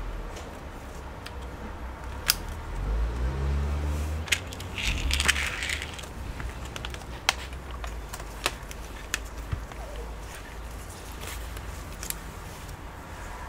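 Scattered sharp plastic clicks and knocks of a laptop being handled and reassembled, starting with a RAM module pressed into its slot, with a short rustle about five seconds in.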